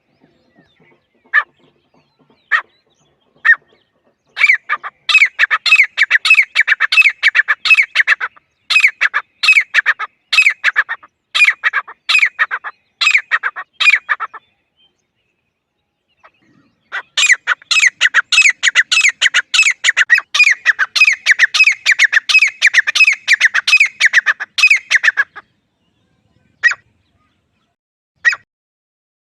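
Teetar (francolin) calling: three single notes, then two long runs of fast repeated call notes, about two to three a second, each lasting roughly 8 to 10 seconds with a short pause between, and a few single notes again near the end. This is a recorded call used as a hunting lure.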